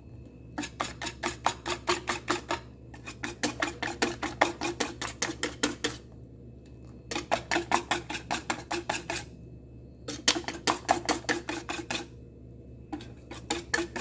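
Wire balloon whisk beating a thin liquid in a stainless steel bowl, its wires clattering against the metal at about six strokes a second. The strokes come in runs of two to three seconds with short pauses between.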